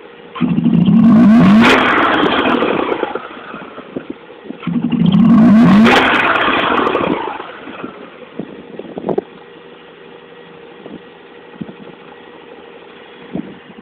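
Mazda RX-8's twin-rotor rotary engine revved twice, a few seconds each time, then dropping back to a steady idle with a few sharp single knocks. The owner is asking whether this is a knocking noise, and says the engine revs slowly at low revs.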